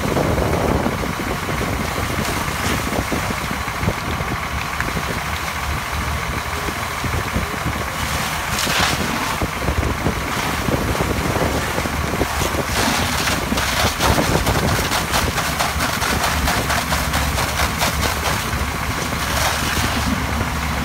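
Fire engine running steadily, its engine and pump giving a constant drone with a steady whine, along with scattered clicks, crackles and short bursts of hiss.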